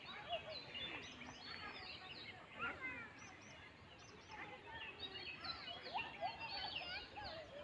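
Birds chirping and whistling, many overlapping calls in a busy chorus.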